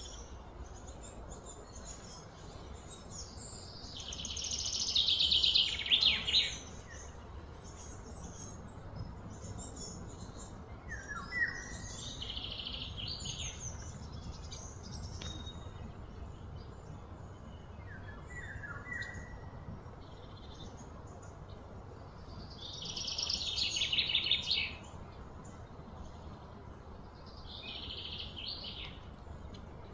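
Birds calling over a steady low background rumble: two loud, rapid high trills, each about two seconds long, a couple of shorter trills, and brief falling chirps in between.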